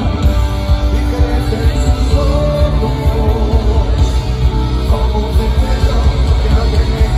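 Live rock band playing a song with a male lead singer, heard through a large stage PA from within the crowd, with heavy bass.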